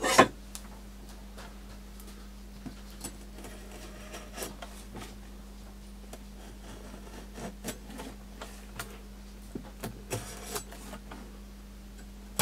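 A large knife working at a clear plastic display box, with scattered light clicks, taps and short scrapes of the blade on the plastic and one longer scrape near the end. A sharp knock right at the start is the loudest sound, and a steady low hum runs underneath.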